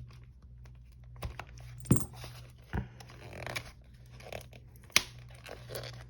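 Tape on a small cube box being cut and torn open with a sharp tool: scraping and ripping noises broken by a few sharp clicks and knocks, the loudest about two seconds in and another about five seconds in.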